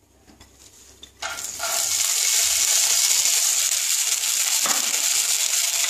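Sprouted mung beans hitting hot sunflower oil in a nonstick kadai and sizzling. The sizzle starts about a second in and settles into a steady, even hiss.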